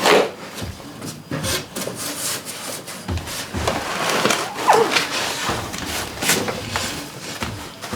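Cardboard and foam packing scraping and rubbing against a large PC case as it is worked out of its box, with irregular scrapes and knocks.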